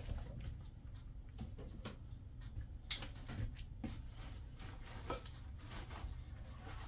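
Light rustling and scattered small clicks of a plastic cooking bag being handled and its contents stirred in a slow cooker, with one sharper click about three seconds in.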